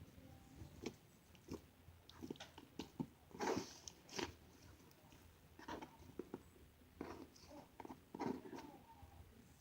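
Slime being squeezed and poked by hand, giving irregular wet clicks and squelches, with a denser cluster about a third of the way in and again near the end.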